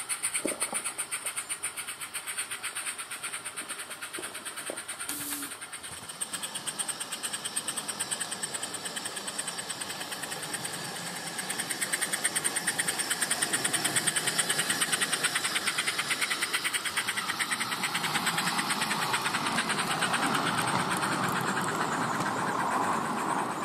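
Garden-scale model of the Sand Hutton No.10 locomotive running, its Summerlands Chuffer sound unit giving a rapid, even chuffing beat. The chuffing grows louder about halfway through as the loco comes closer.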